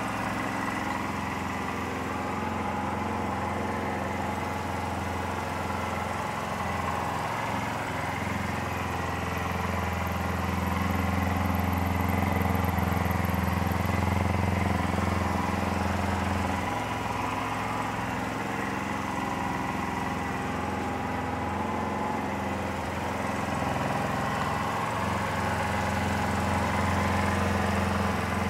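2008 Kawasaki EX250R (Ninja 250R) 249 cc parallel-twin engine running at a steady idle during an idle test. It gets a little louder for a few seconds around the middle and again near the end.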